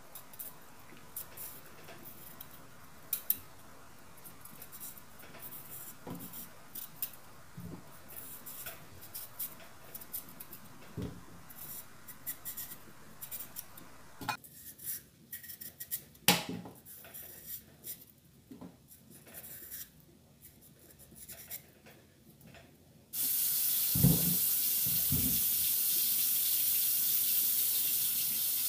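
Chayote being peeled by hand over a stainless steel sink: faint, scattered scrapes and light taps. Near the end a tap comes on suddenly and water runs steadily into the sink, the loudest sound.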